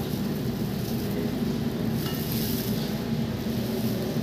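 Steady low hum and rushing noise of kitchen equipment running, unchanging throughout.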